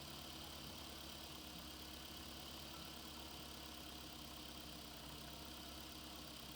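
RC construction truck's engine sound idling steadily: a low, even engine hum with no change in pitch.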